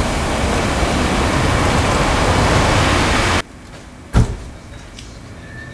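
Loud, steady street traffic noise that cuts off abruptly a little over three seconds in, leaving a much quieter street ambience with a single sharp knock shortly after.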